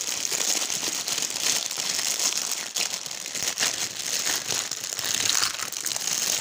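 Plastic cosmetics packaging rustling and crinkling as items are rummaged through, a continuous crackly rustle with many small clicks.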